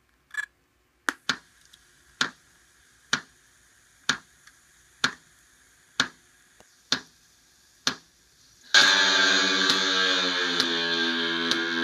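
Sharp ticks about once a second from small 3-watt speakers on a test bench, then about nine seconds in loud music with held notes suddenly starts playing through them from the sound board's amplifier.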